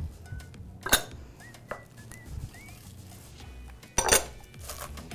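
Two sharp clinks about three seconds apart, the second a short cluster: a small glass bowl knocking against a stainless steel saucepan as dry ingredients are tipped in and stirred into melted chocolate.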